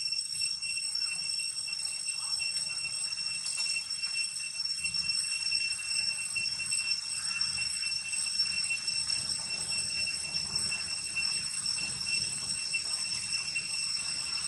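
Insects droning in a steady, high, even whine that holds without a break.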